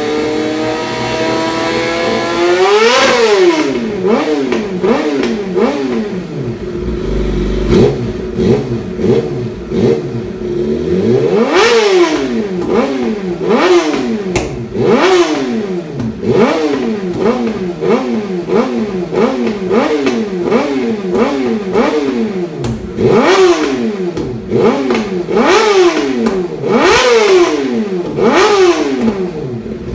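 Yamaha YZF-R6 inline-four engine revving through an N-One full titanium exhaust. It climbs slowly at first, then goes into quick repeated throttle blips, the revs shooting up and dropping back about once or twice a second. A few blips go much higher than the rest.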